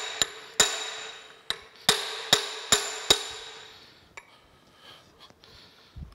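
Steel hammer striking a rusted-in pivot pin and block inside a steam locomotive stoker engine's crankcase to break it loose: about seven sharp, ringing metal blows in quick succession over three seconds, then a few light clicks.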